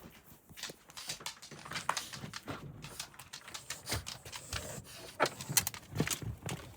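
A dog walking, with irregular clicks and scuffs of footsteps and some breathing, and a few heavier steps or thumps about two thirds of the way through.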